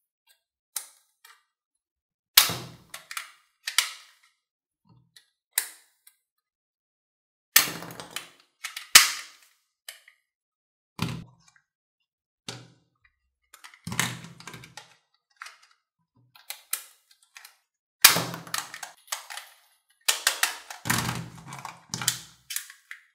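Plastic toy dart and ball guns being handled, cocked and triggered: sharp plastic clicks and snaps with occasional knocks against the table, at irregular intervals, coming more often near the end.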